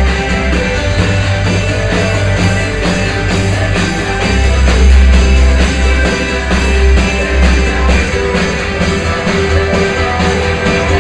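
Loud music with heavy bass and a steady, regular beat.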